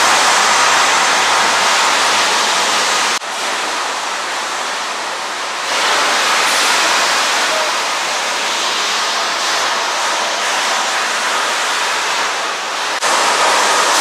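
Loud, steady din of sawmill machinery running, an even hiss-like noise with no distinct knocks or rhythm. It drops suddenly about three seconds in, swells back a couple of seconds later and jumps up again near the end.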